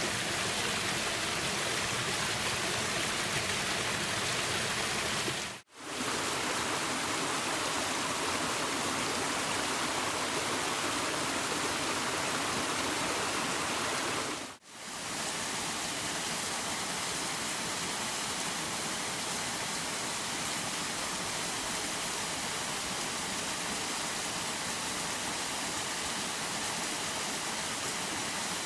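Waterfalls rushing in a steady, even roar of falling water. The sound fades out briefly twice, about 6 and 15 seconds in, as one waterfall recording gives way to the next, each with a slightly different tone.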